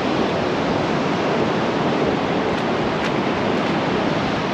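Steady rush of ocean surf, with wind.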